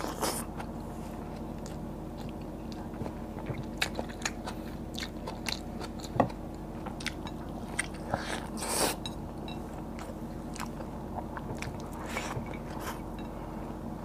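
A person chewing and biting, with wet mouth smacks and crisp clicks scattered through, while eating fried tilapia and rice by hand. A sharp click comes about six seconds in, and a louder cluster a little after eight seconds.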